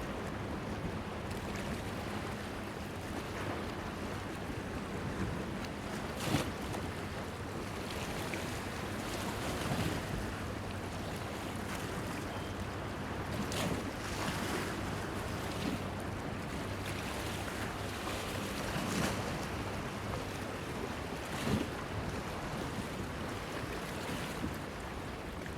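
Small waves washing against a stone breakwater pier: a steady wash of water with several sharper splashes, over a faint low hum.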